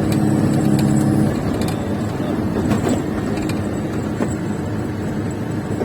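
Truck engine running with a steady low rumble, a pitched hum standing out for about the first second.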